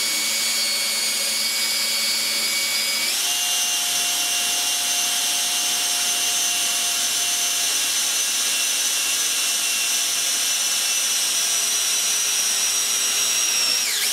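Cordless drill with a quarter-inch bit boring through a wooden rifle stock. The motor runs with a steady whine that steps up in pitch about three seconds in and dips near the end.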